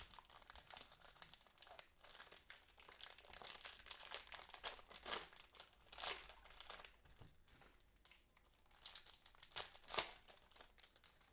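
Cellophane wrapper of a trading-card cello pack crinkling and tearing as it is handled and opened, in irregular flurries with a louder crackle about ten seconds in.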